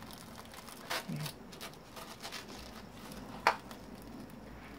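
Quiet handling of disassembled plastic massager parts: a few light clicks and taps, with one sharp click about three and a half seconds in.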